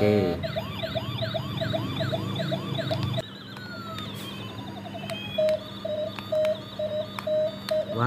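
Toy ambulance's electronic siren, set off by a press on its roof button: a fast, repeating rising-and-falling wail for about three seconds, then it switches to a different siren pattern that ends in an evenly pulsing beep.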